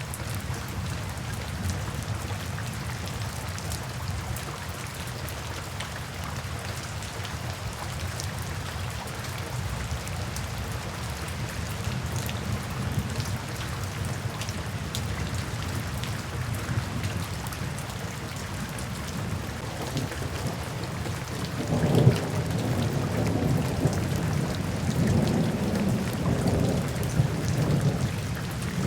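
Steady rain falling. About 22 seconds in, a rumble of thunder breaks in suddenly and rolls on, louder than the rain, until the end.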